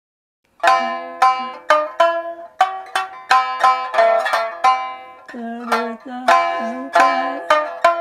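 Shamisen being played: a run of sharply struck notes, about two to three a second, each ringing on briefly, starting about half a second in.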